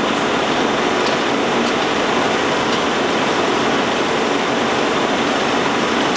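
1952 Bullard Cutmaster vertical turret lathe running with its 36-inch faceplate table turning: a steady, even whir of the main drive.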